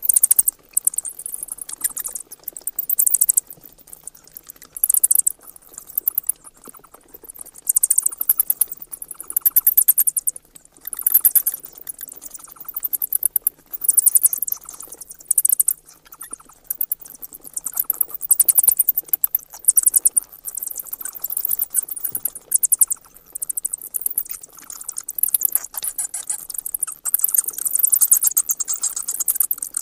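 Bats calling: repeated bursts of rapid, high-pitched clicking chatter, one burst every second or two.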